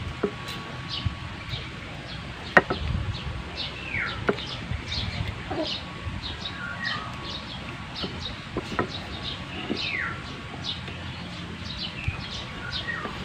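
Birds chirping over and over in short high notes, with a longer falling call about four seconds in and again near ten seconds. A few sharp clicks come through, the loudest about two and a half seconds in, from a small knife carving into a wooden stock.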